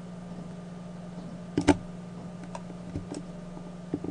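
A few sharp clicks from a computer keyboard and mouse, the loudest about a second and a half in, over a steady low electrical hum.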